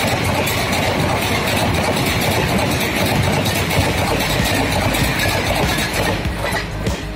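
Express passenger train's coaches running past at speed close by: a steady loud rumble and rush of steel wheels on rail, thinning a little near the end as the last coaches go by.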